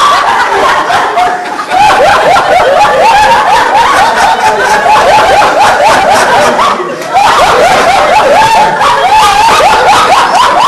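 People laughing hard together in a laughter-yoga exercise: rapid, repeated ha-ha pulses that dip briefly about one and a half seconds in and again about seven seconds in.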